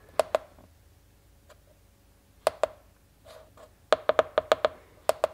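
Keypad buttons of a CGSULIT SC880 OBDII scan tool clicking under a finger as it steps through menus: a couple of presses near the start, a pair about two and a half seconds in, and a quick run of presses around four seconds in.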